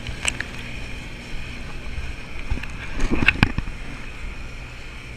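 Steady low engine rumble from a houseboat's stern exhaust pipe, with water gushing out of it at the lake surface. A short clatter of knocks comes about three seconds in.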